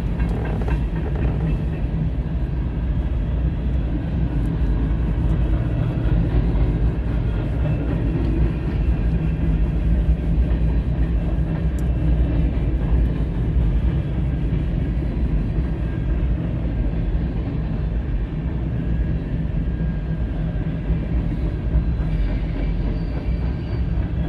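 Freight train rolling past: a steady low rumble of wheels on rail, with faint clicks.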